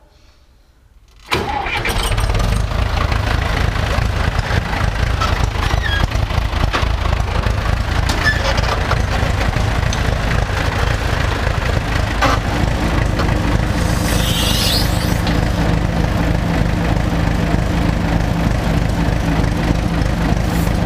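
Farm tractor's diesel engine running steadily and loud after a near-quiet first second, while its hydraulic lift raises the implement on the hitch. A short rising squeal comes about fourteen seconds in.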